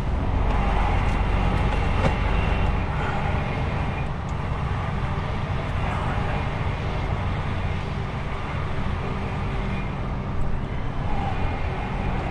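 Heavy truck's diesel engine running at a steady low speed, a continuous low drone under road and body noise, with a few light clicks.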